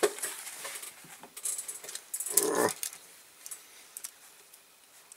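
A few light clicks and small rattles of objects being handled on a workbench, with one short whine-like vocal sound about two and a half seconds in.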